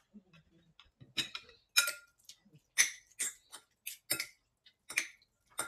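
Metal serving utensils clinking and tapping against a bowl and plate as noodles are lifted and served: about a dozen sharp, irregular clicks, some with a short ring.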